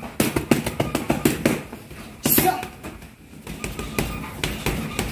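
Boxing gloves smacking into focus mitts in a rapid flurry, about six strikes a second for the first couple of seconds. A short sharp hiss follows, then a few lighter hits.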